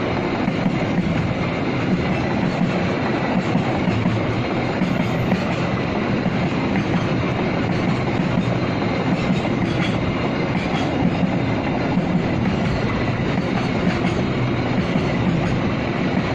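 Freight train wagons rolling past, a steady loud rumble and clatter of steel wheels over the rails.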